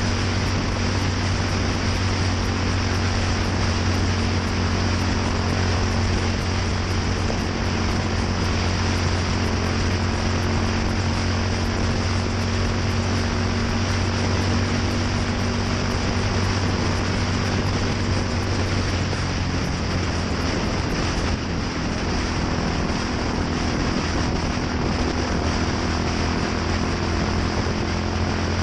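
Yamaha SR400's single-cylinder four-stroke engine running steadily through an aftermarket NitroHeads muffler, a low, even exhaust note.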